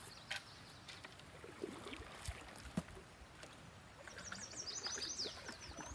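Canoe being paddled, with soft paddle strokes in the water and a few sharp knocks, the loudest a little under three seconds in. Near the end a bird sings a quick run of short, high, falling chirps.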